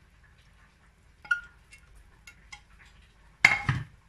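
Metal ladle and dishes clinking lightly a few times while lentil soup is served over bread, then one louder clatter near the end.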